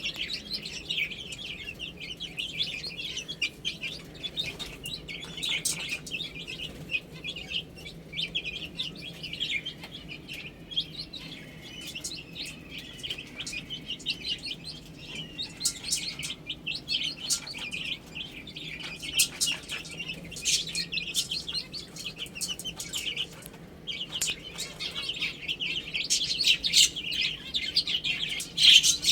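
A group of young chicks peeping: many short, high-pitched chirps overlapping almost without a break, busiest near the end.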